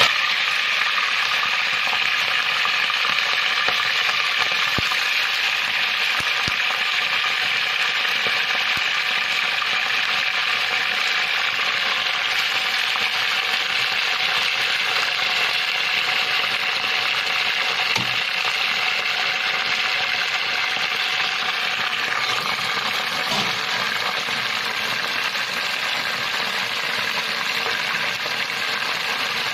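Raw bone-in chicken pieces sizzling in hot oil with whole spices in a pressure-cooker pot: a steady frying hiss with a few sharp pops, easing slightly toward the end.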